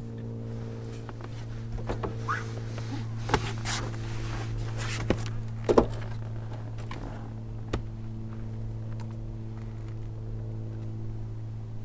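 Several knocks and thumps on a car body, the loudest a little before the middle, as someone clambers up through the car's sunroof onto the roof, over a steady low hum.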